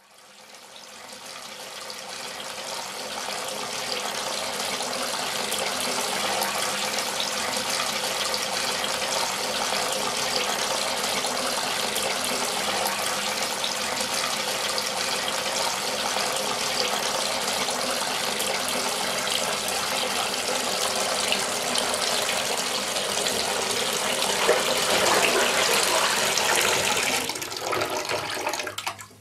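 Water running from a chrome bathtub mixer tap into a tub, a steady rush that swells in over the first few seconds. It grows louder about 25 seconds in, then drops sharply near the end.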